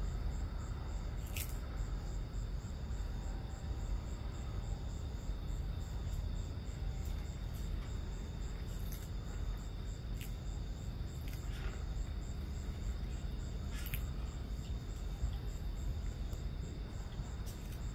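Crickets chirping steadily in a quick, regular high pulse over a low, steady rumble, with a few faint clicks now and then.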